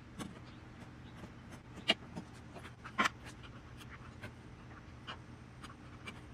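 Hand chisel paring wood in a small recess: light scraping and ticking strokes, with two sharper clicks about two and three seconds in.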